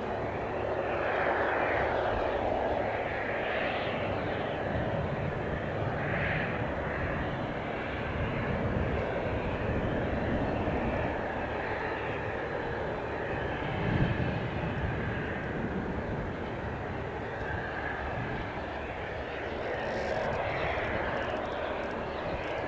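Cessna 172 Skyhawk's single piston engine and propeller running at full power for takeoff, with a steady drone that swells and eases as the plane moves.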